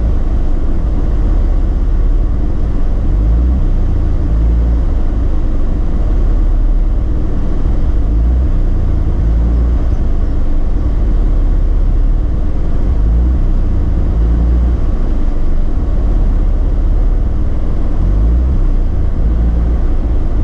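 Mazda RX-8's twin-rotor Renesis rotary engine idling unevenly, its low running note swelling and dropping irregularly as it misfires at low rpm once warm. The misfires were traced to incorrectly wired fuel injectors.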